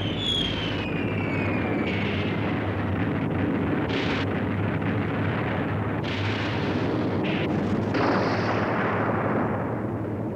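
Aerial bombs exploding in a dense, continuous barrage, with a falling whistle in the first two seconds and several heavier blasts later on.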